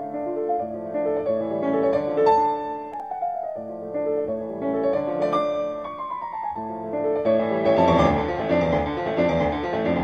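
Piano music playing, with quick runs of falling notes, growing fuller and a little louder in the last few seconds.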